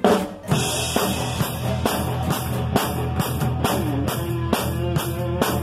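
Live rock band playing: a drum kit kicks in with a crash about half a second in, then keeps a steady beat with cymbals, with guitar notes over it.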